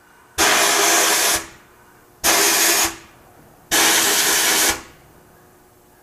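Abrasive blast cabinet gun firing three short blasts of compressed air and grit, each a loud hiss that starts sharply and lasts about a second, to clean a door lock actuator housing.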